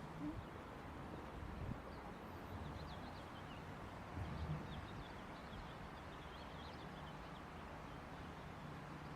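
Outdoor city ambience: a steady low rumble of traffic, with small birds chirping faintly through the middle.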